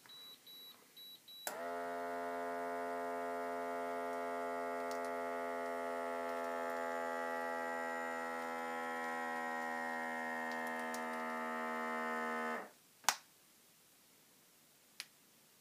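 Automatic blood pressure monitor: a few short high beeps as it starts, then its cuff-inflation pump motor hums steadily for about eleven seconds and stops suddenly, followed by a sharp click.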